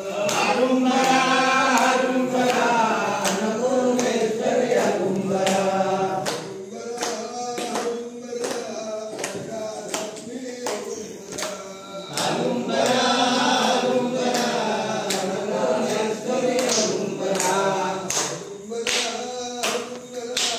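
Several voices singing a devotional song together in phrases that swell and fade, kept in time by steady rhythmic hand claps.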